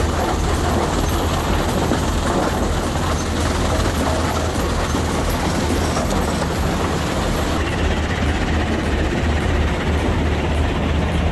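Heavy industrial crushing or shredding machinery running steadily: a deep hum under a dense, continuous rattle of material being broken up. The sharper hiss fades about three-quarters of the way through while the hum and rattle carry on.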